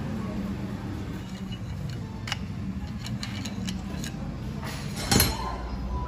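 Small metal clicks and clinks of a pick tool prying the piston-pin circlips out of a motorcycle engine's pistons, with one louder clink about five seconds in, over a steady background hum.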